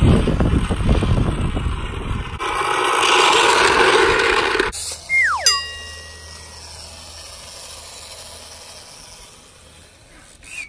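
Loud rushing noise for the first four or five seconds. Then comes a quick falling whistle and a bell-like ding, like an edited-in sound effect. After that there is only a quiet, steady low hum.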